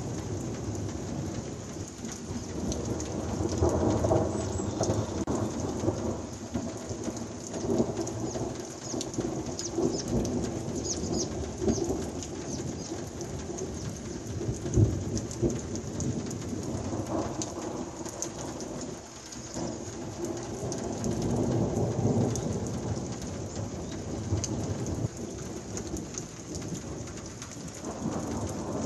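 Heavy downpour of a thunderstorm, rain hissing steadily with close drops tapping, while thunder rumbles repeatedly in several long swells. One sudden louder crack comes about halfway.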